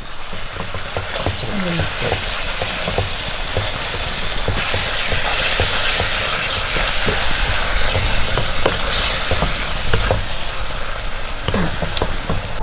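Wet onion-tomato masala sizzling in a hot non-stick pan just after hot water has been added, while a spatula stirs and scrapes it with many small clicks. The sizzle gets louder about four seconds in.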